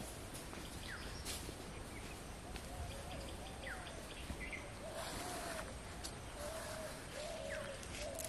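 Birds calling: a short, arching low note repeated every second or so, with a few quick falling whistles over a steady background hiss. A brief rustle about five seconds in.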